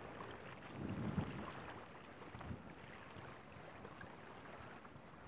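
Faint wind noise on the microphone, an even low rumble with a soft low bump about a second in.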